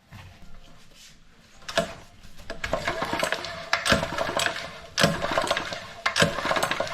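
Recoil starter of a freshly rebuilt Honda GX200-clone engine pulled by hand several times, the cord rattling out as the engine turns over.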